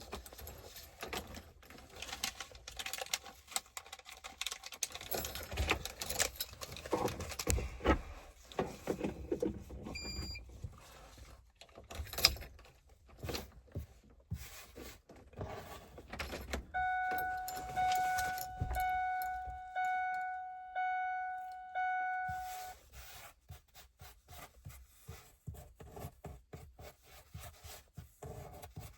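Truck keys jangling and clicking in the ignition, with a brief high beep about ten seconds in. Then the truck's warning chime dings about once a second, six times, each ding fading away.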